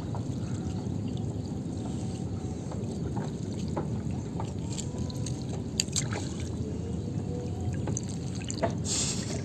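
Water dripping and trickling off a monofilament fishing net as it is hauled hand over hand out of the water into a wooden canoe, with a few faint ticks and splashes.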